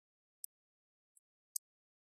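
Near silence, broken by a few brief, faint, high-pitched ticks.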